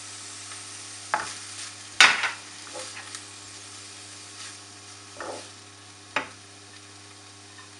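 Wooden spoon stirring a paneer and tomato mixture in a nonstick frying pan, scraping and knocking against the pan several times, loudest about two seconds in, over light sizzling from the hot oil.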